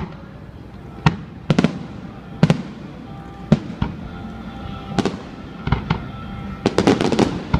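Fireworks shells bursting in sharp bangs at irregular intervals, each with a short echoing tail, followed by a rapid cluster of bangs near the end.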